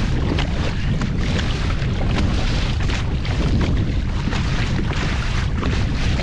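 Storm wind buffeting the microphone in a loud, steady low rumble, over the hiss and slap of rough ocean water around a kayak.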